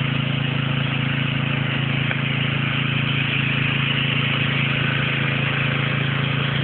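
A small engine running at a steady, unchanging speed.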